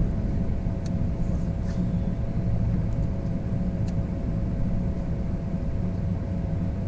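Wind rumbling on the microphone of a camera mounted on an open bass boat, with a faint steady hum underneath and a couple of faint clicks.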